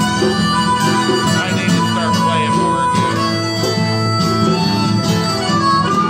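Harmonica played into a vocal microphone through the PA, holding long notes over strummed acoustic guitars.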